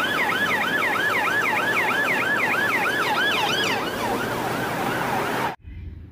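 Police car sirens in a fast yelp, rising and falling about three times a second, with more than one siren overlapping at different pitches. They cut off suddenly about five and a half seconds in.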